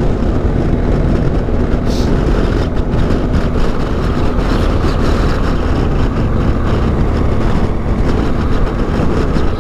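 BMW GS adventure motorcycle riding at a steady cruise: engine running evenly under wind rush and tyre noise on wet tarmac.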